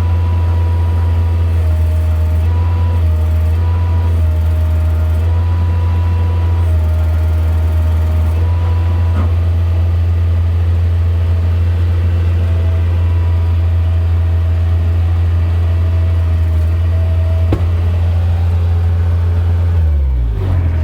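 Skid steer engine running steadily with a strong low drone, a higher whine switching between two pitches as the loader is worked during a lift test of new pallet forks. Near the end the engine note falls as it winds down.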